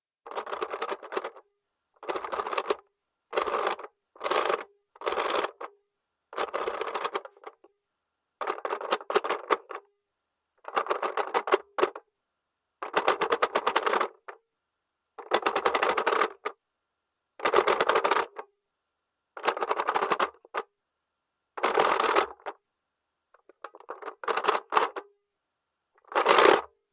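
Plastic mechanism of a 1975 Tomy owl toy clock worked by hand, ratcheting in fast clicks: about fifteen short bursts of clicking with brief pauses between.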